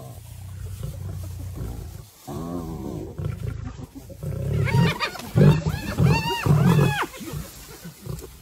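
Lionesses growling and snarling in a fight: a low continuous growl for about two seconds, then a rising-and-falling call, then a burst of several loud snarls about five seconds in.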